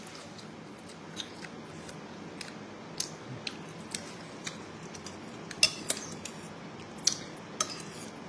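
Spoon and chopsticks clinking and tapping against a bowl of soup while eating. Scattered sharp clicks come about once a second, a few louder ones in the second half.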